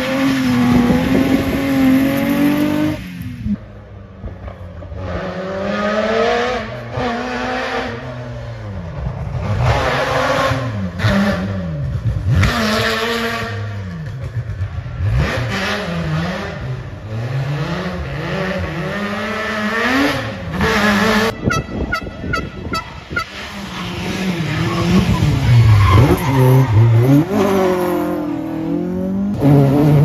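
Rally car engines at full throttle, several cars in turn, revving up and dropping back through gear changes as they come past and go away. About two thirds in there is a short spell of rapid, even crackling.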